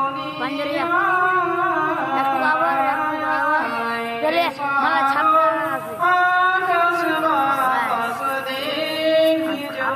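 A man singing a melodic recitation into a microphone over a PA system: one voice in long, wavering held phrases.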